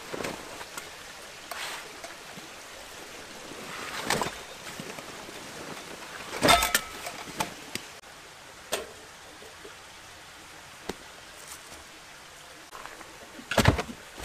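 Camping gear being handled and set down at a tarp shelter: rustling with a few scattered knocks and clunks, one with a brief ringing tone, over a steady outdoor background hiss.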